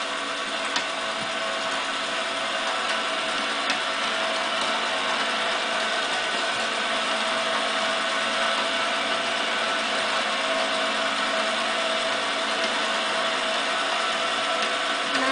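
Small battery-powered motor and plastic gears of a toy magnetic fishing game whirring steadily as its pond turns, with a couple of faint clicks.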